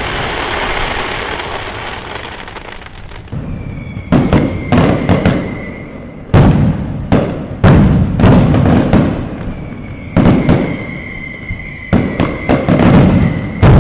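Fireworks going off: a crackling fade from a big burst, then a run of sharp, irregular bangs. A high steady whistle sounds under the bangs twice.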